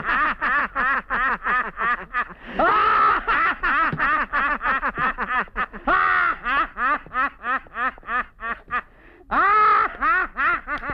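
Men laughing hysterically. A fast, rhythmic cackle of about five "ha"s a second is broken by long, high whoops about every three seconds.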